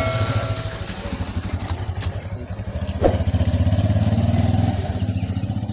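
An engine running with a steady, even throb, growing louder from about three seconds in, with one sharp knock near the middle.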